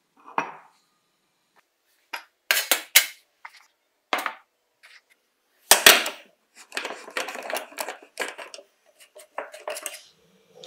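Metal clanks and clicks of a tin can being handled with groove-joint pliers: the jaws clamp onto the can's metal screw cap and twist it loose, a loud knock about six seconds in followed by a grating run of metal on metal. The cap comes free near the end.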